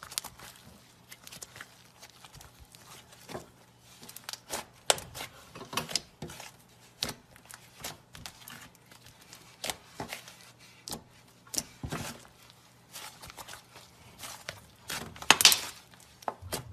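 Hands kneading, squeezing and stretching slime, making irregular sticky clicks and pops, with a louder burst of pops about fifteen seconds in.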